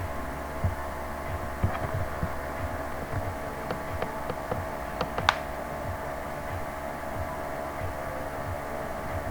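Steady low electrical hum with soft, irregular low thumps and a few faint clicks about five seconds in.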